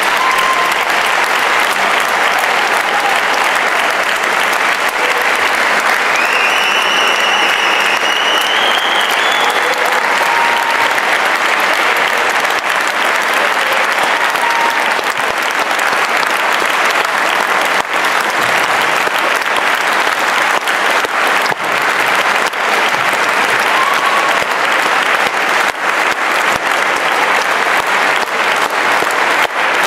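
Audience in a concert hall applauding steadily and at length. About a quarter of the way through, one high whistle rises in pitch.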